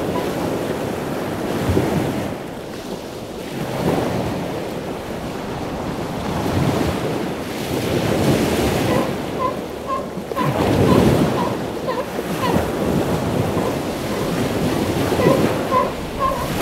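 Ocean surf washing ashore in slow swells, with wind on the microphone. From about nine seconds in, faint short chirps repeat a couple of times a second.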